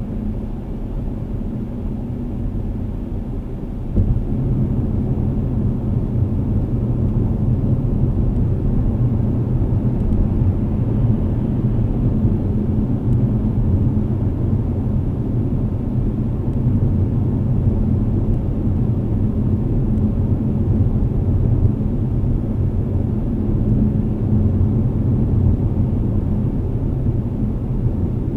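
Steady low road and engine rumble heard inside a moving car at highway speed, getting louder about four seconds in.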